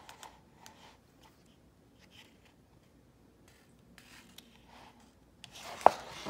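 A picture book's page being turned: a quick paper rustle with a sharp snap near the end. Before that, only faint small rustles from the book being handled.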